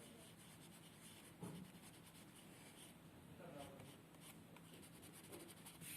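Faint scratching of a colouring stick being stroked back and forth over paper in many quick short strokes.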